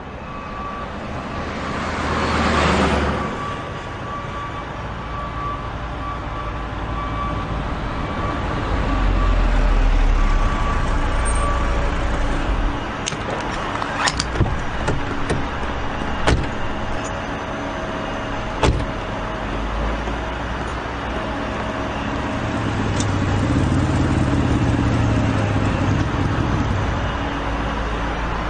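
Car engine running with traffic-like rumble. A vehicle passes by about two and a half seconds in. A few sharp clicks come in the middle, and an engine hum swells near the end.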